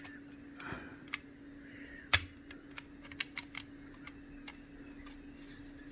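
Small sharp clicks and taps of a laptop's plastic memory-slot cover being handled and fitted back into place, one louder click about two seconds in followed by a run of lighter ticks, over a faint steady hum.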